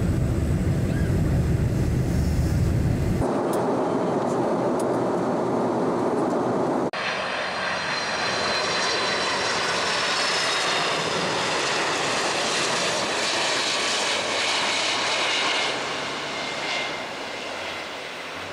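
Steady jet roar heard inside an airliner's cabin on approach with the flaps down. After a sharp cut about seven seconds in, a KLM Boeing 747 passes low on landing approach, its jet engines whining with several high whistling tones over a rushing noise that eases off near the end.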